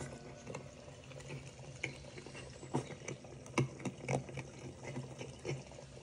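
Faint trickle of a small stream running over stones, with irregular soft clicks and a low steady hum underneath.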